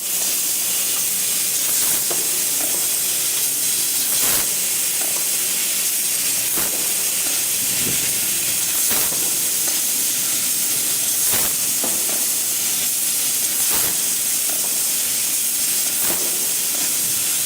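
CNC fiber laser tube cutting machine at work: a steady, loud hiss of the cutting head's assist gas, with faint short strokes every second or two and a thin high whine.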